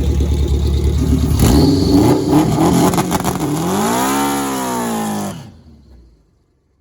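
Car engine running, then revving up and falling back in pitch about three and a half seconds in; the sound cuts off abruptly just after.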